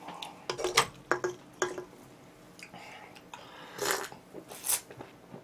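Eating and food-handling sounds at a table while oven-roasted chicken is eaten: a run of short clicks and knocks, then two louder crackly bursts near the end.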